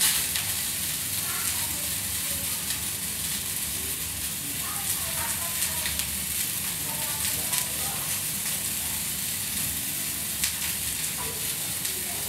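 Pork steak frying in a hot steel pan with butter: a steady sizzle with small crackles throughout.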